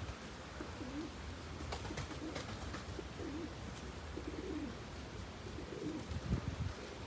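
A dove cooing: several low, wavering coos spaced a second or more apart, over a steady low rumble.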